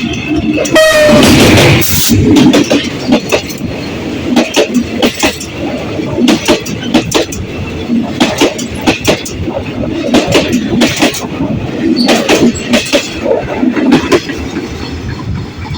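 Passenger train rolling into a station: a loud pitched blast, the train's horn, from about half a second to two seconds in, then a steady rumble with irregular clicks and clunks of wheels over rail joints and points.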